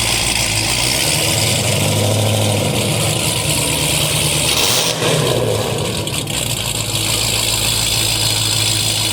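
Car engine running steadily near idle, its note shifting slightly a couple of times, over a steady hiss.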